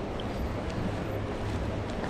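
Steady outdoor background noise with a low, uneven rumble of wind on the microphone, and a few faint ticks.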